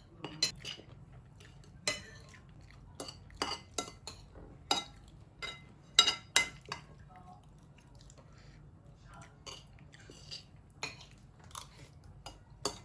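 Cutlery clinking and scraping against dishes while eating: irregular sharp clinks, with the loudest pair about six seconds in.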